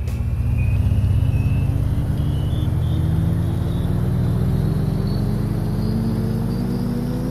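Soundtrack riser between music tracks: a low, dense drone under a tone that climbs slowly and steadily in pitch.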